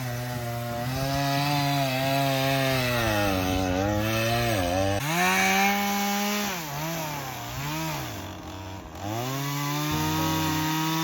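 A small engine running, its pitch holding and then rising and dipping several times as it revs up and down.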